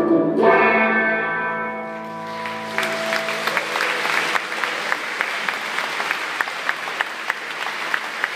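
A guitar chord struck about half a second in rings out and fades. About three seconds in, the audience breaks into applause, which carries on steadily.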